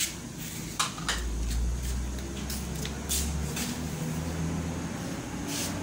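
Kitchen clatter from ingredients and utensils being handled at a counter: a few sharp knocks and taps, over a low hum that fades in about a second in and drops back after the middle.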